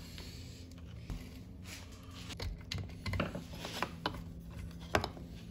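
Faint, scattered clicks and light scrapes of small engine parts being handled: a Stihl FS-90R trimmer's carburetor being worked out along its mounting studs while the rubber impulse line is pulled off it with a pick.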